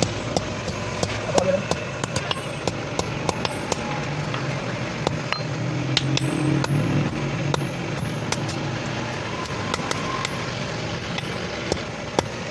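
Irregular sharp metal clinks and knocks, as of iron being handled or tapped in a blacksmith's workshop, over a steady low rumble.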